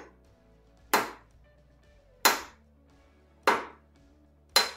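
Hammer blows knocking parts further down onto a 3D-printed pump rotor: a light tap at the start, then four hard, sharp knocks a little over a second apart.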